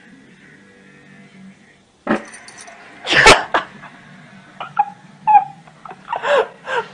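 Domestic cat making short sounds: a loud sudden burst about three seconds in, then several brief cries that fall in pitch.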